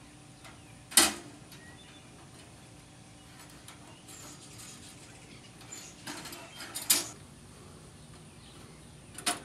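Metal rod being worked through the wire mesh of a Havahart cage trap, with a sharp metal click about a second in, a few clinks around six to seven seconds, and another just before the end.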